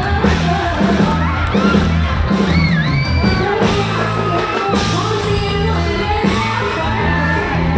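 Loud live concert music over a PA system: a woman singing into a microphone over an accompaniment with a steady bass beat.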